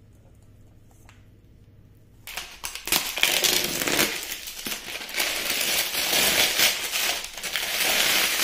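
A faint low hum, then from about two seconds in a loud, crackly crinkling and rustling of a stack of thin aluminium foil tart cases being handled on a counter.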